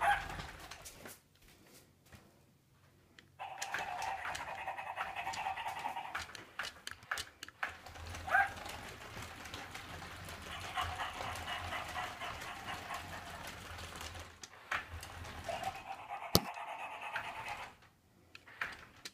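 Battery-powered FurReal GoGo walking toy puppy running, its motor and gears giving a steady whirr as it walks, mixed with short electronic dog sounds from its speaker. The whirr starts a few seconds in, breaks off briefly, resumes, and stops shortly before the end, with one sharp click near the end.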